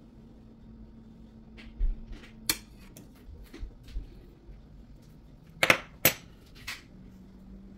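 Metal fork clinking and scraping against a ceramic plate of food: a scatter of sharp clicks, the loudest two close together about three-quarters of the way through.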